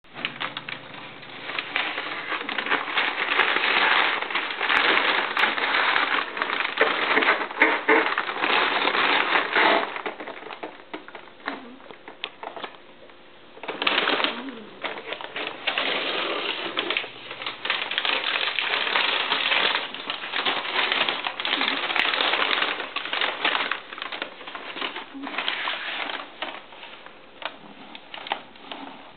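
Crumpled packing paper crinkling and rustling as a cat shifts and burrows in it inside a cardboard box. The crackling goes quiet for about three seconds near the middle, then starts again.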